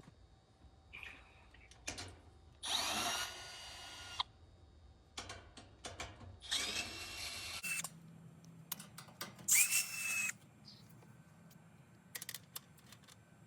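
Power drill-driver running in three short bursts, each spinning up with a rising whine, with small clicks and handling knocks between the runs.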